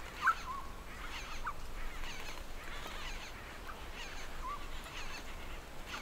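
A large colony of Montezuma oropendolas calling, with many overlapping display calls and chatter and a few close, louder calls, the loudest about a third of a second in.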